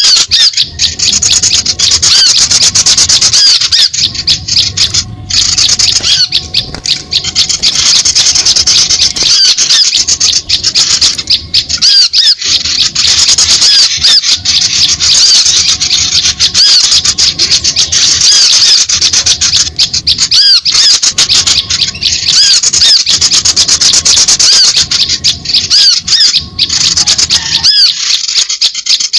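Bird-lure recording of small songbirds: a loud, dense, unbroken stream of rapid, high-pitched chirps and twitters, played to call small birds in.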